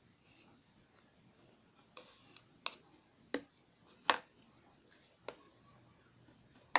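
About six sharp clicks and taps, spaced irregularly a second or so apart, from small kitchen items being handled.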